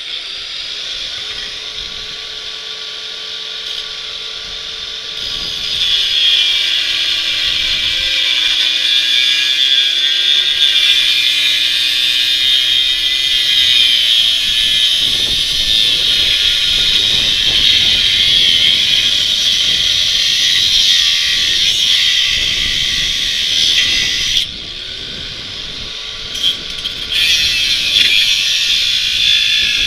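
Angle grinder with a cut-off wheel cutting through steel bicycle frame tubing. The motor whines on its own at first; about six seconds in the wheel bites into the metal with a loud, high cutting hiss that runs until near the end, drops back to the motor whine, then cuts again in short bursts.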